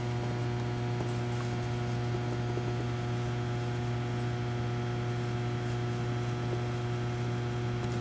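Steady electrical mains hum: a low buzz with several fainter higher overtones that holds level and pitch.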